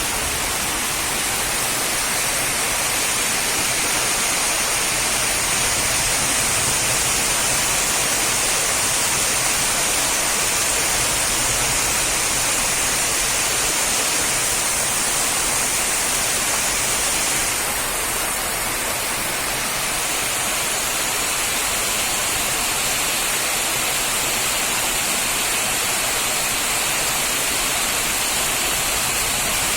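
Heavy rain falling in a steady, dense hiss, with a brief dip and a slight change in tone a little over halfway through.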